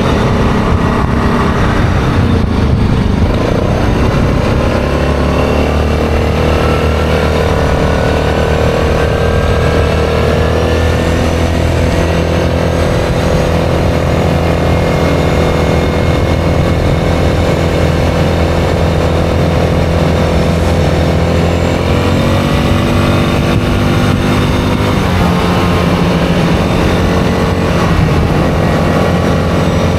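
ATV engine running under way at a steady speed, its pitch dipping and then climbing again a few seconds in, and rising and shifting again near the end.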